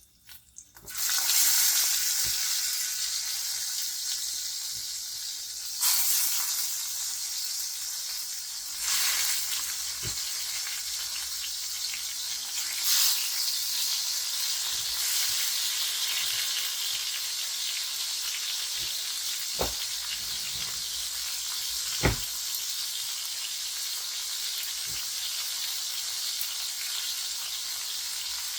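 Food sizzling in hot oil in a frying pan, starting suddenly about a second in and running steadily, swelling briefly three times. Two sharp knocks of a utensil on the pan come later.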